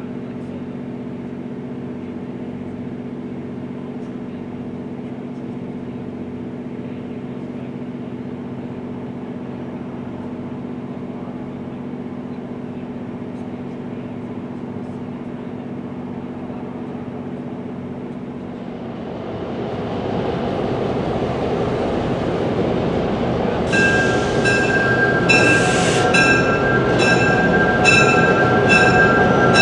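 ACL E3 passenger diesel locomotive with twin EMD 567 engines drawing nearer: a steady low engine hum that grows louder about two-thirds of the way through as it approaches. Near the end a bell starts ringing in steady strokes, about one and a half a second.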